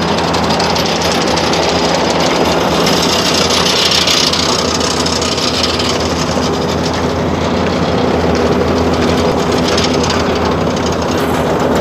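Heavy diesel road-paving machinery, an asphalt paver and a CAT tandem roller, running steadily at work: a loud, unbroken engine drone.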